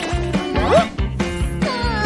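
Upbeat background music with a steady beat, with a short rising pitched swoop a little under a second in.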